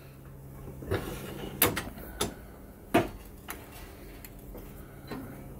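Metal knocks and clanks as a damascus knife blade is set between aluminum plates and clamped in a bench vise to keep it from warping. Several sharp knocks come between about one and three and a half seconds in, the loudest near three seconds, with a lighter one near the end.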